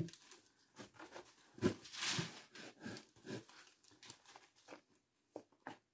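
Hands scooping and crumbling damp peat out of a styrofoam box and dropping it over blackberry root cuttings. It comes as a run of short, irregular rustling, crunching scrapes, the loudest about two seconds in.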